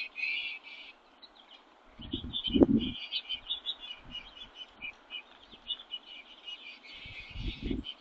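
Small songbirds chirping and twittering rapidly and continuously at a feeder, with a few low thumps about two seconds in and again near the end.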